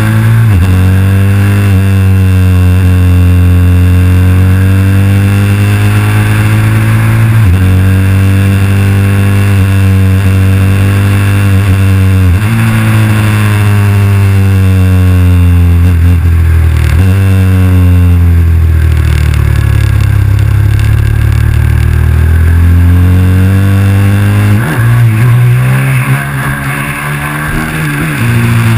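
KTM 990 SMR's V-twin engine under way on the road, its pitch drifting up and down through each gear and dropping sharply at several gear changes, with one quick rise near the end. Wind rush runs underneath.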